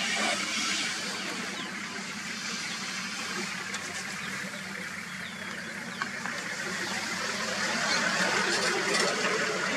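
A vehicle engine idling steadily under a hiss of outdoor background noise, with a few faint short chirps about two to four seconds in.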